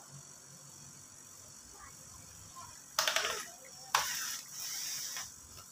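Two short bursts of rattling clicks about three and four seconds in, the second starting sharply, as the plastic speedometer and head cover of a Honda Beat scooter is worked apart by hand.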